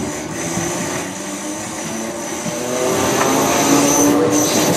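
Merseyrail Class 508 electric multiple unit running into the platform, its traction motors and gears whining and growing louder as it draws alongside. A steady high squeal runs over it.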